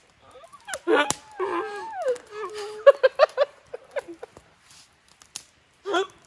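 People's voices, partly unclear talk and short laughter, with a single sharp click about a second in.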